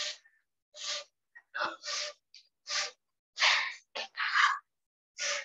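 Repeated short scraping rustles, about one a second, of plastic basketry tape being rubbed and pressed by hand on a woven basket top.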